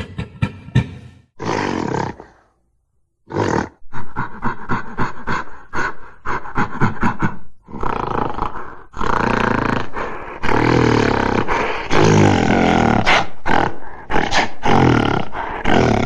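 Giant gorilla creature sound effect: a few short grunts and a roar, a brief pause, a run of quick rapid grunts, then long, loud roars over the second half.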